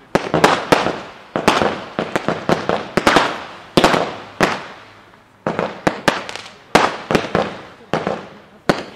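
Aerial fireworks bursting in quick succession: a run of sharp bangs, sometimes several within a second, each trailing off, with a brief lull about halfway through.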